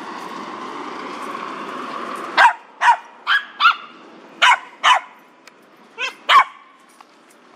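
Eight short, sharp barks, mostly in pairs, starting about two and a half seconds in. They follow a steady rushing background noise that cuts off just as the barking begins.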